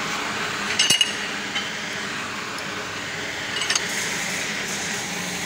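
Sharp metallic clinks from a leaf-spring U-bolt being worked in a bench vise: a quick cluster about a second in and another pair near the end, over steady background hiss.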